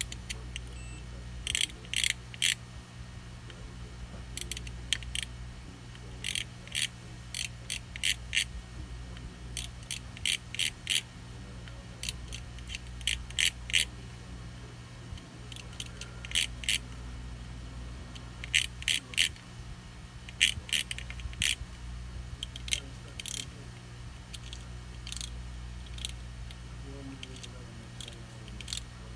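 Multimeter probes tapped onto the solder points of a PS4 power supply board: short, sharp high-pitched ticks in quick clusters of two or three, every second or so, over a steady low hum.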